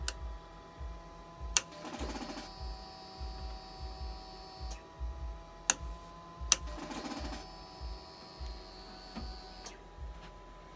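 The starter solenoid on a 2004 Suzuki GSX-R1000 gives sharp clicks as the start button is pressed, each time followed by a brief buzzing chatter and a steady high electrical whine for a couple of seconds that then cuts off. This happens twice, and the engine does not crank. It is the symptom of a no-start in which the electrics dim and the display blanks despite a full battery.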